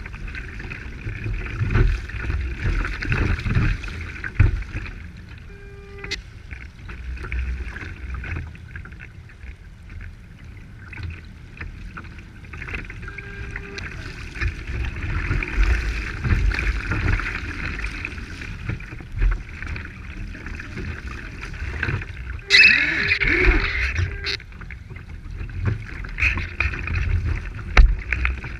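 Choppy water rushing and slapping against the hull of a radio-controlled IOM racing yacht under sail, heard from on deck, with uneven low rumbling surges. A louder splash comes about two-thirds of the way through.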